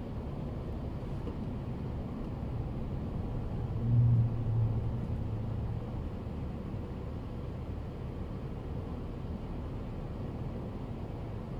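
Steady low road and engine rumble from inside a car driving in traffic, with a louder low engine drone about four seconds in that fades away over about two seconds.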